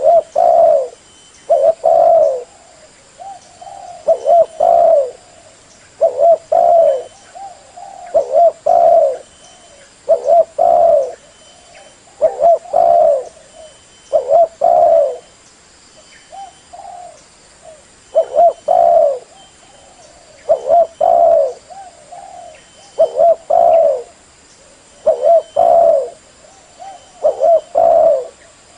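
Spotted dove (tekukur) cooing its song over and over: short phrases of a few low, rounded coos, repeated about every two seconds.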